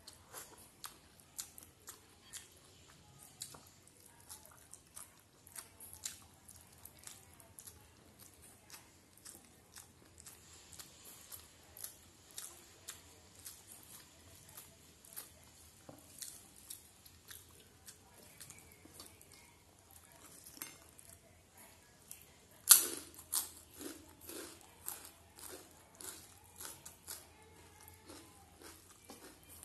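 Close-up eating sounds: a person mixing rice by hand on a steel plate and chewing, as a steady run of small wet clicks and smacks. About three-quarters of the way through comes one much louder sharp crack or crunch, followed by a burst of louder chewing.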